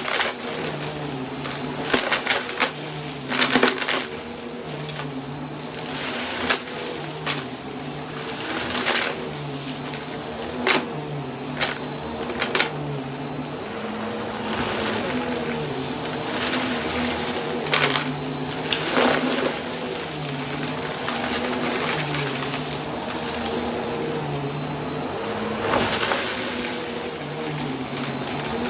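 Bissell vacuum cleaner running steadily while it sucks up crunchy debris from a rug. Its motor hum wavers in pitch from pass to pass, and sharp crackles and crunches come through at irregular moments, several of them loud.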